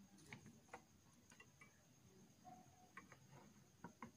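Near silence with a few faint, scattered clicks and taps of a CPU heatsink fan being handled and set in place on the motherboard.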